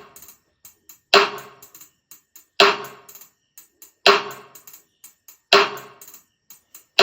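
High-frequency test track played through a 100 W monitor speaker box: a sharp metallic strike repeating about every second and a half, each dying away quickly, with faint ticks between the strikes.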